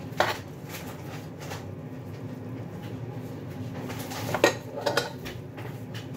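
Light kitchen clatter: a sharp knock or clink just after the start and a few more about four and a half seconds in, over a steady low hum.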